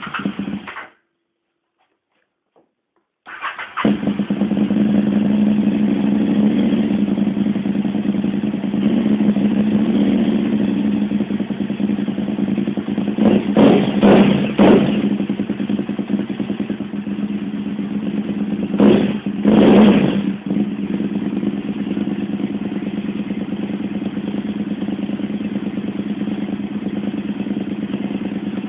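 KTM 950 Supermoto R V-twin being started with difficulty: a short burst of cranking, a pause, then the engine catches about three seconds in. It is blipped twice, around the middle and again about two-thirds through, then settles to a steady idle. The hard start comes with no fuel pump clicks.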